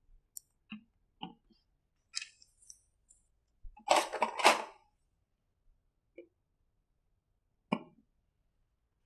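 Paper cards being handled and pressed onto a whiteboard: a few light knocks and a rustle of paper lasting under a second about four seconds in, the loudest sound.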